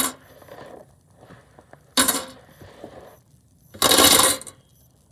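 Small fidget toys clattering and clinking together as they are handled or dropped, in two loud bursts about two seconds and four seconds in.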